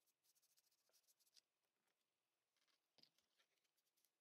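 Near silence, with faint scattered clicks and rustles of hands handling a plastic opening card and a suction cup against a phone's glass back.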